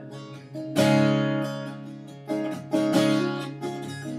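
Fingerpicked steel-string acoustic guitar with a capo, playing an instrumental passage of plucked bass notes and chords that ring on. The strongest chord lands about a second in, with more sharp plucks a little past the middle.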